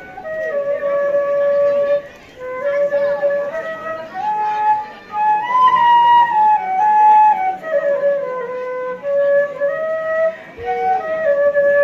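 Music: a solo flute playing a slow melody of held notes that step up and down, rising to its highest notes about six seconds in.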